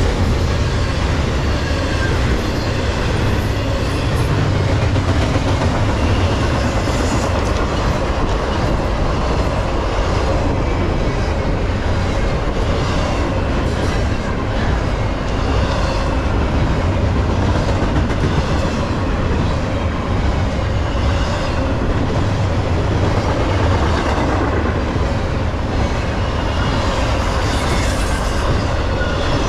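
Intermodal freight train's double-stack container and trailer cars rolling past, a steady rumble with wheels clicking over the rail joints.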